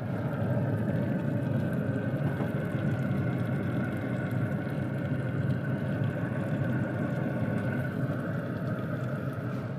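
Steady mechanical hum with a low drone, even throughout.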